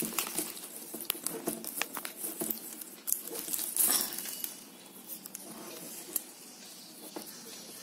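Yellow plastic weaving wire rustling and clicking as fingers push strand ends in through tight woven knots, with irregular crackles that thin out and grow quieter after about four seconds.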